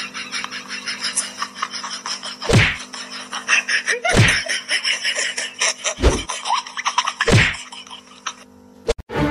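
Four loud sharp whacks, spaced about one and a half to two seconds apart, over background music.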